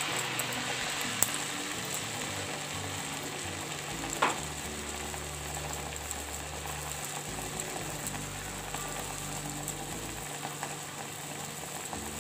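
A maize-flour puri deep-frying in hot oil: a steady sizzle of bubbling oil, with one short sharp click about four seconds in.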